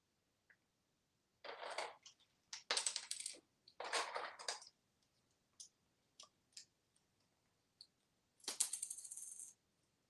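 Toy coins clattering and clinking on a hard vanity countertop as an African grey parrot picks them up and drops them. There are three short rattling bursts in the first half, then scattered single clicks, then near the end a coin rattles and rings for about a second as it settles.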